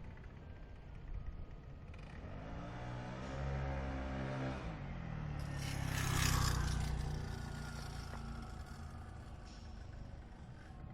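Scooter engine revved up and back down, peaking about six seconds in, with a jingling, ringing rattle that the owner traces to the front CVT drive pulley (variator), a sign of a fault in that pulley.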